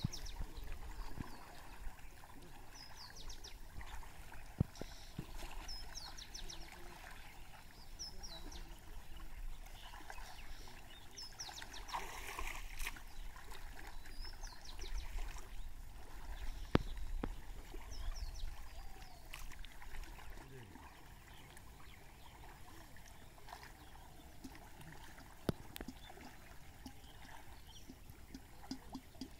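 People wading through shallow floodwater, water sloshing and trickling around their legs, with a louder splash about twelve seconds in. Short high bird chirps come every few seconds, and a few sharp clicks stand out.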